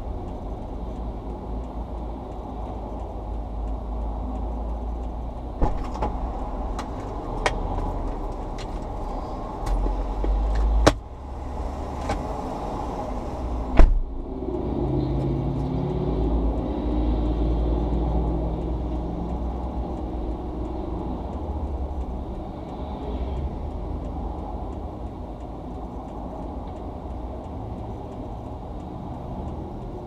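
Steady low rumble of highway traffic passing, muffled as heard from inside a stopped car. In the middle comes a run of sharp clicks and knocks, the loudest about eleven and fourteen seconds in, and after them a deeper engine drone swells for several seconds.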